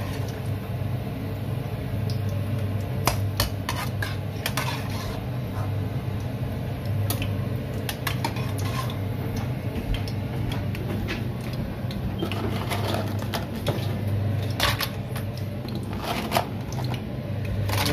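Pork skin frying in a pan of hot oil, with scattered sharp pops and clicks over a steady low hum.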